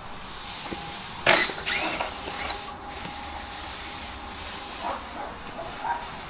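A dog yelping, with a sharp loud yelp about a second in and a shorter one just after, then a few faint ones later.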